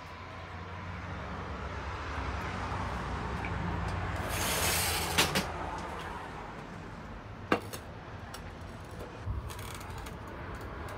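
Outdoor traffic hum swelling as a balcony sliding door opens, with a brief loud rush of noise near the middle. A sharp click and a few light knocks follow as the man settles at the balcony table.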